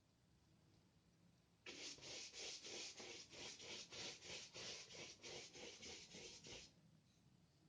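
Wide paintbrush loaded with white gouache brushed back and forth across a sheet of paper, priming it: faint rhythmic scratchy strokes, about four a second, starting a couple of seconds in and stopping shortly before the end.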